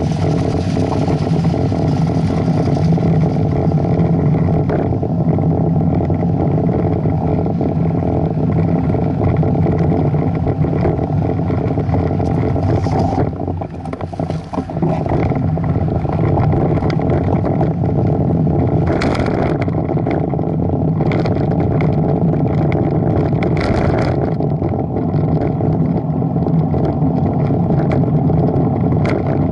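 A vehicle's engine running steadily with road and wind noise, heard from an onboard camera. The sound dips briefly about halfway through as the vehicle slows through a turn, then picks up again. Short gusts of wind hiss come through in the second half.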